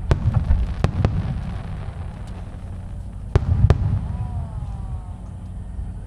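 Aerial fireworks shells bursting over a low, continuous rumble. There are sharp bangs in two groups, several in the first second and two more a little past halfway.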